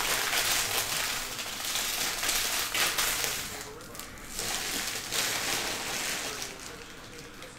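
Crinkly rustling of trading-card pack wrappers being handled and torn, in two spells: a long one of about four seconds, then a shorter one of about a second and a half.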